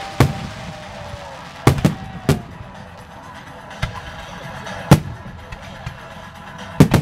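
Fireworks display: aerial shells bursting with sharp bangs, about six in seven seconds, the loudest about five seconds in and a quick pair near the end.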